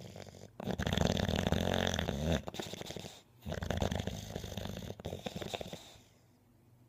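A sleeping pet snoring: two long, low snores, the first the louder.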